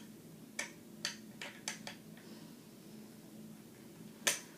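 Sharp metallic clicks and taps of a small wrench on the nuts and bolts of a pull-up bar as they are tightened. They come irregularly, five in the first two seconds, then one louder clack near the end.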